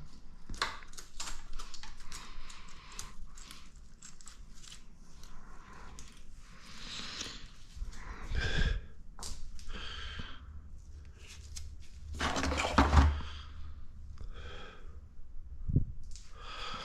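Irregular clicks, light metal clinks and rattling of the cam timing chain and engine parts being handled as the chain is wrapped onto the camshaft sprocket, with a few short scraping or rustling stretches.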